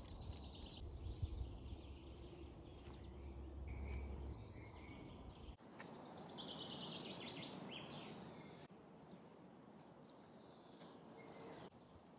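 Faint spring woodland with small birds singing and chirping. A low rumble in the first half stops abruptly about five and a half seconds in.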